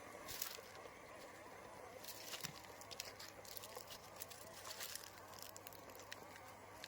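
Faint scattered clicks and small taps over a low steady hum.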